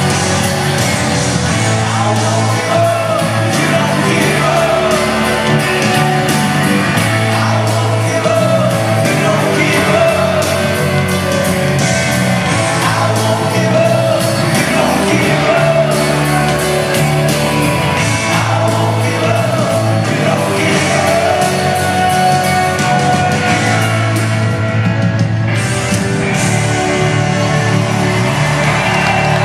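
Live rock band playing in an arena, with electric guitars, keyboards and drums under a sung vocal.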